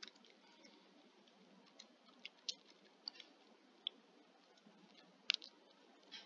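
A few faint computer mouse clicks, irregularly spaced, the sharpest a quick pair about five seconds in.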